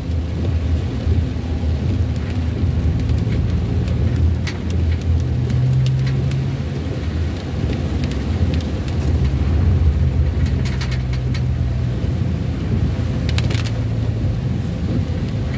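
Ambulance driving on a wet road, heard from inside the cab: a steady low engine and tyre drone, with light rain on the windscreen and a few scattered clicks.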